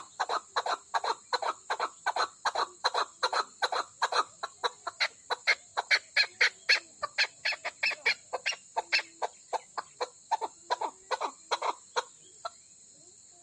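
Female chukar partridge (chakor) calling in a rapid, even series of short clucking notes, about four a second, that stop near the end. A steady high chirring of crickets runs underneath.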